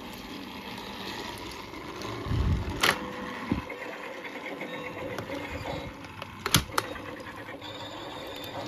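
Motorised toy train running on its track, its small motor whirring steadily. There is a low thump a little over two seconds in, a sharp click about three seconds in, and two more clicks close together about three quarters of the way through.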